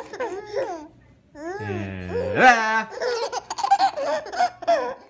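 Twin babies laughing in short repeated bursts, with a brief pause about a second in.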